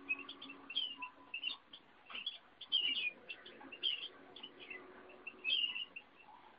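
Eurasian bullfinch and canary in a breeding cage calling: short chirps and soft piping notes, several a second, with a few louder gliding notes.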